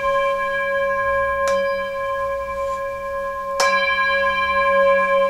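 Metal singing bowls ringing with several sustained, overlapping tones, struck twice with a mallet: once about a second and a half in, and again a little past the middle.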